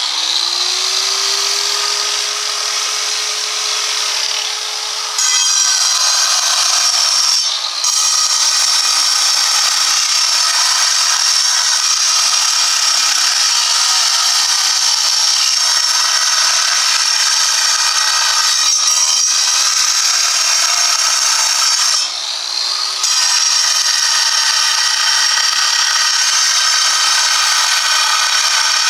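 Large angle grinder cutting into a stone block. For the first few seconds the motor runs free with a steady whine, then the blade bites into the stone and the sound turns louder and harsher; it lifts briefly out of the cut near 8 seconds and again about two-thirds of the way through, when the free-running whine returns, before cutting on.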